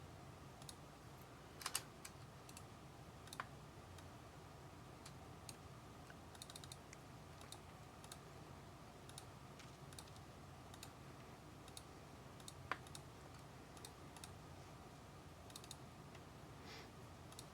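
Near silence: faint room tone with a few scattered small clicks.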